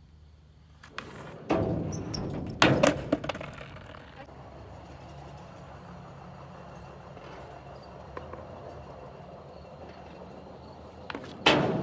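Skateboard knocking and clattering on a ramp: a few loud knocks about two to three seconds in and another near the end, with a steady rumble in between.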